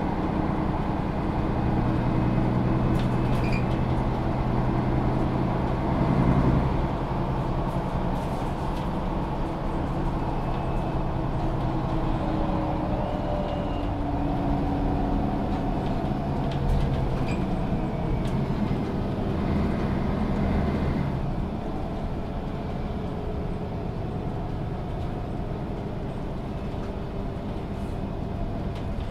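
Setra S 415 NF city bus under way, heard from inside: its diesel engine and Voith automatic gearbox running steadily, the engine pitch rising and falling as it changes speed and gears. It is a little quieter over the last third.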